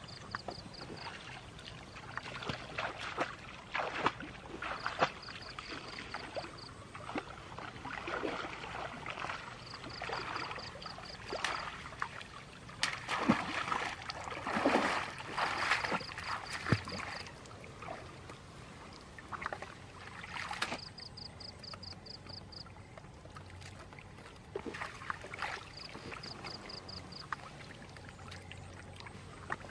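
Shallow muddy pond water splashing and sloshing in irregular surges as a woven bamboo basket is scooped through it by someone wading, loudest around the middle and calmer near the end. A short, high trill of rapid clicks repeats every few seconds.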